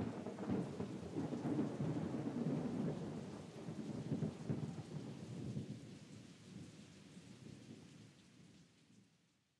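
Thunderstorm sound effect: rumbling, crackling thunder over rain, dying away over the last few seconds.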